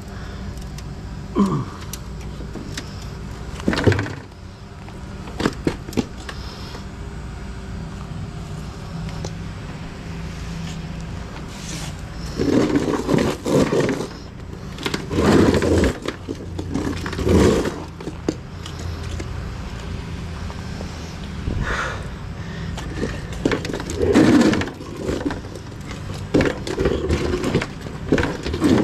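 Metal electronics chassis with three cooling fans being tipped and slid over pavement: sheet metal scraping and clattering in several bursts, with a few sharp knocks early on, over a steady low hum.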